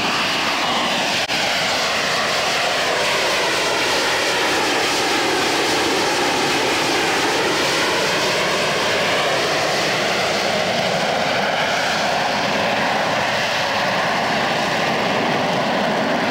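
AV-8B Harrier's Rolls-Royce Pegasus vectored-thrust turbofan running at hover power: a steady, loud jet roar. Whining tones within it slowly drift down and then back up as the jet holds in the hover.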